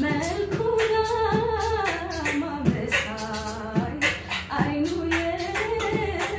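A woman singing a held, bending melody while a man beatboxes the rhythm beneath her: a cappella voice and mouth percussion, with no instruments.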